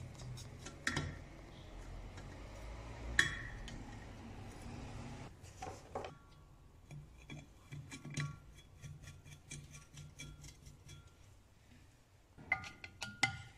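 Screwdriver work on a Peugeot 103 moped engine's magneto-side crankcase: metal clicks and taps as screws are turned in, with one sharp knock about three seconds in and a quick run of clicks near the end.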